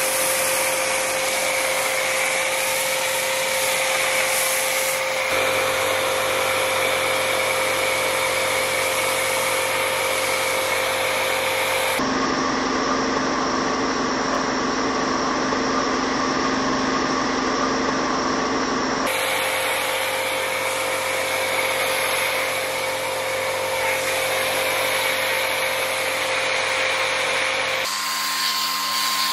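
Pressure washer running steadily, with the hiss of a foam cannon spraying. Its steady tones change abruptly a few times.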